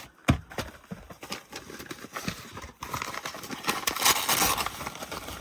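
Packaging rustling and crinkling, with scattered light knocks and clicks, as a vacuum cleaner accessory is unwrapped. The rustling is loudest about four seconds in.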